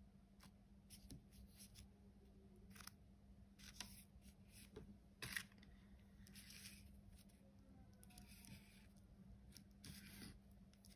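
Faint, short scrapes and light clicks of a metal palette knife spreading and smoothing soft lightweight filler over a polystyrene cake slice, with a sharper tap about five seconds in.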